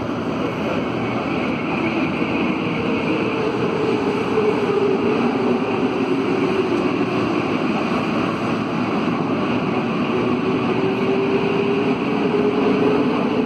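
Cabin sound of a CAF NS-07 rubber-tyred metro train pulling out of a station into the tunnel: a steady rolling rumble with a traction-motor tone that rises, dips a little and rises again as the train gathers speed.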